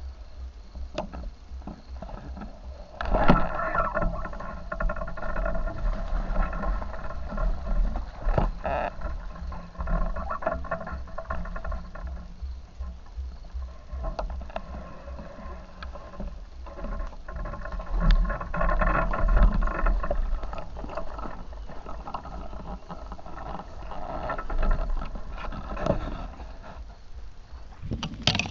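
Stream water splashing and gurgling in uneven swells with scattered clicks, over a choppy low rumble of wind on the microphone.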